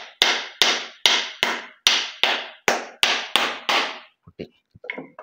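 Block of ice being crushed in a steel bowl by pounding it with a long pestle. About ten sharp, ringing strikes come at an even pace of roughly two and a half a second, stop about four seconds in, and a few light knocks follow.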